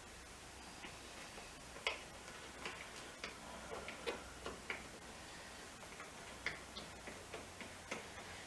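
Irregular light clicks and taps, a dozen or so spread unevenly over several seconds, from hand work fitting a motorcycle seat back onto the bike.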